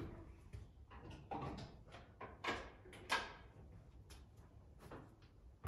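A string of faint knocks and clicks as the opened driver's door and cab of a Land Rover Series 3 are handled, with a sharper knock about three seconds in.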